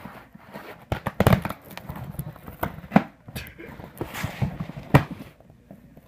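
Handling noises: rustling and scraping with several sharp knocks or clicks, the loudest about one, three and five seconds in.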